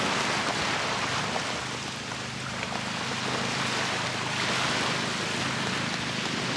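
Small waves washing onto a sandy beach: a steady rush of surf that swells about four seconds in, with a faint low hum underneath.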